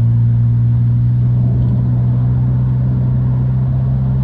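BMW 328i's 2.8-litre straight-six running at a steady, even pitch while the car drives, with road noise. No grinding from the wheel, the failed drop link now replaced.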